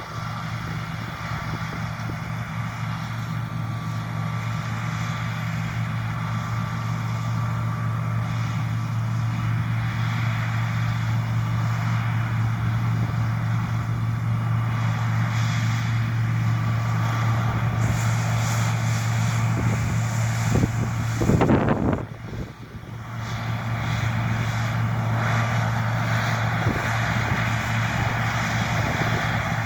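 John Deere T670i combine harvester running under load while cutting, a steady engine drone with threshing and cutting noise over it. About two-thirds of the way through there is a brief loud burst, then the sound drops away sharply and builds back up to full within a couple of seconds.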